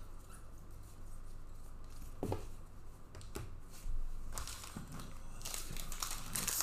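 Trading-card pack wrappers being torn open and crinkled, with a couple of light taps in the middle. The crinkling starts a little past halfway and grows louder near the end.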